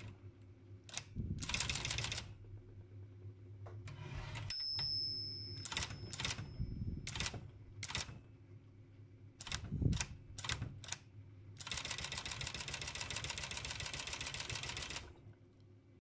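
Facit ET3 typewriter's backspace mechanism clicking: single clicks and short clatters, and a brief thin high ring about four and a half seconds in. Near the end comes a rapid, even run of clicks lasting about three seconds. A steady low hum runs underneath.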